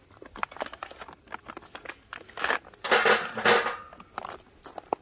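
Foil-lined bag crinkling as pine cones are poured out onto the wire grate of a stainless steel fire pit, the cones clattering and clicking. The rustling is loudest around three seconds in, with scattered small clicks before and after.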